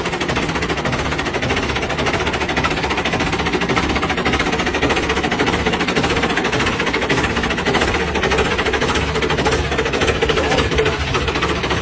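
Tractor engine running steadily with a rapid, even knocking beat.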